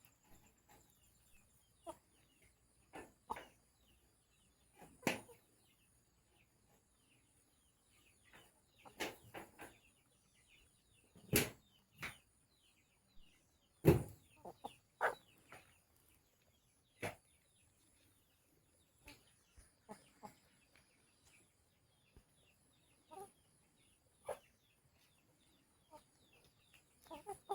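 Chickens clucking on and off, with a couple of sharp knocks standing out in the middle, the loudest about 11 and 14 seconds in.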